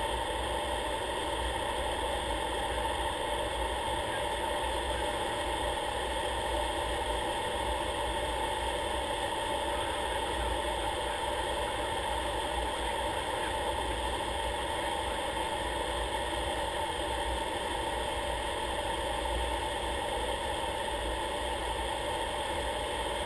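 Aircraft engine and propeller noise inside the cockpit: a steady drone with several held tones and no change in power.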